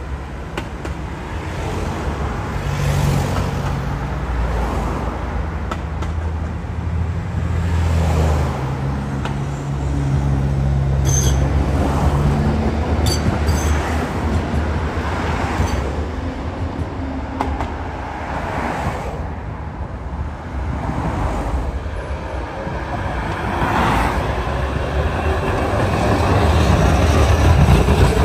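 City tram running along its track: a steady low rumble with a hum that shifts in pitch, swelling and easing, with a few brief high squeaks about eleven to thirteen seconds in.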